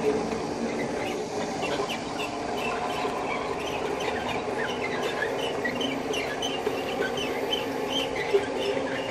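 Cable-hauled 2.7 m flat manure scraper running along a concrete manure channel under load, making a steady mechanical drone with frequent short, high squeaks.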